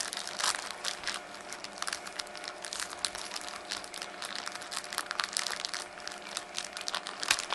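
Thin clear plastic bag crinkling as fingers work a small plastic toy piece out of it: a continuous run of small crackles.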